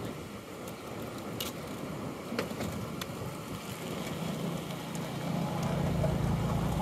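Outdoor wind and water noise with a few faint clicks, then a steady low motor drone that comes in about halfway through and holds.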